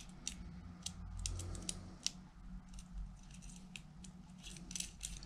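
Small metal parts of a Taz Lov2 lanyard's tension cleat being handled and worked into place by fingers: faint, irregular clicks and ticks over a low steady hum.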